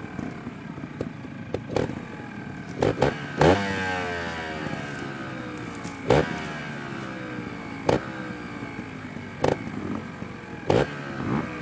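Trials motorcycle engine ticking over, blipped sharply about eight times at uneven intervals. After the biggest blip, about three and a half seconds in, the revs slide back down to idle.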